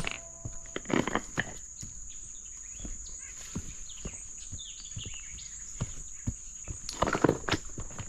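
Footsteps crunching and scuffing over the rocks and gravel of a creek bed, louder about a second in and again near the end, under a steady high buzz of insects.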